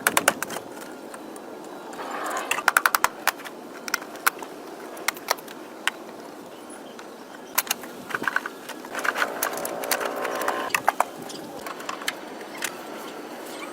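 Clattering work sounds: irregular sharp clicks and knocks in quick runs, one about two seconds in and a longer one from about eight to eleven seconds in, with single knocks between.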